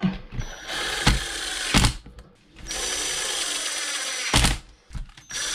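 Cordless drill/driver driving screws into an RC truck's chassis plate. It runs in two steady whirring stretches of a second and a half and two seconds, with sharp knocks as the screws seat, and starts a third run near the end.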